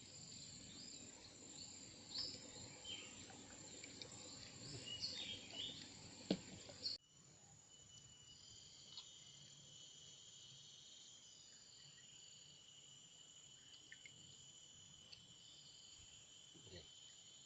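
Insects chirping and buzzing with a steady high whine, with choppier chirping calls over the first seven seconds. The sound cuts abruptly about seven seconds in to a quieter, even insect drone.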